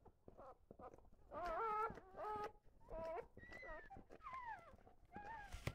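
A dog whimpering: about six short, high, wavering whines, some sliding down in pitch, after faint rustling in the first second.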